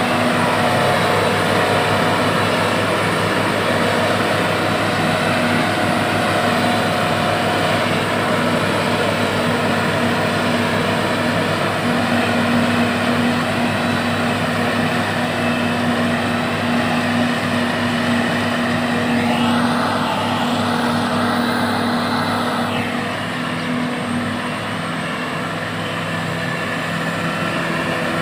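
Claas Jaguar self-propelled forage harvester running under load as it chops maize for silage, with the tractors pulling the trailers alongside: a steady, loud mechanical drone with constant hum tones. About two-thirds of the way through, a higher whine wavers up and down for a few seconds.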